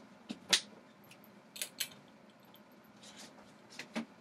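Several sharp clicks and taps of handling, the loudest about half a second in, with a last pair of clicks near the end as the room's light switch is flicked on.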